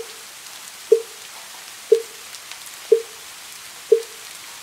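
Wooden fish (mu yu) struck at an even pace of one knock a second, five knocks, each short and quickly fading, over a steady soft patter of rain.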